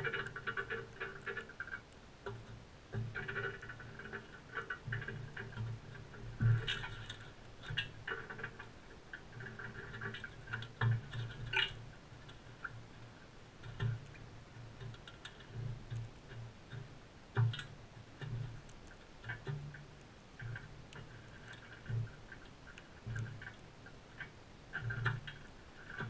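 Crimson rosellas feeding at close range, cracking and husking seeds in their beaks, with irregular crunches, clicks and light knocks of beaks against the seed tray and dish.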